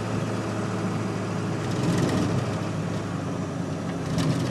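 Steady engine and road noise heard from inside a moving car's cabin, with a couple of brief knocks or rattles as it drives over a rough road surface.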